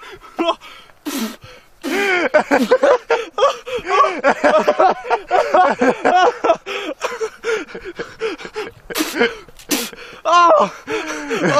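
Men laughing hard and gasping for breath, with a few short hissing bursts.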